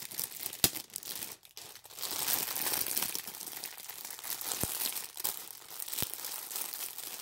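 Clear plastic bags of diamond painting drills crinkling as they are handled, with a few sharp clicks.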